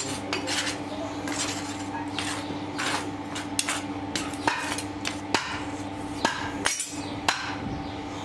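Flat steel tool scraping foundry sand and knocking against the rim of a steel moulding flask: irregular sharp metallic clinks, roughly one every half second to a second, over a steady low hum.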